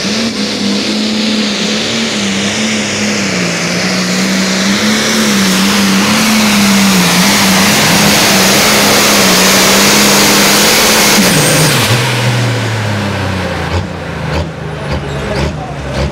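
Turbocharged diesel pulling tractor running at full throttle under load, its engine note holding steady with slight wavering under a strong high hiss. About twelve seconds in, the throttle comes off and the engine winds down to a lower, quieter run with a few scattered knocks.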